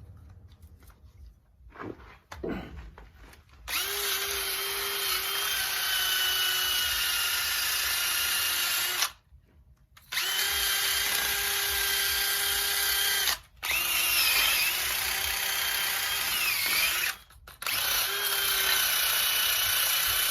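Power drill spinning a cleaning attachment against a brake caliper to strip off rust and old paint, with a steady whine under a hiss of scouring. It runs in four stretches with short stops, and its pitch sags briefly as it is pressed harder. A couple of light knocks come before it starts.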